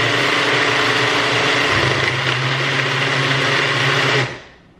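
OYeet GoPower personal blender motor running steadily with a high whine over a low hum as it churns an overfilled smoothie. It cuts off a little after four seconds in and starts again just before the end. The mix is too thick: too much fruit and powder for too little liquid, in the owner's own judgment.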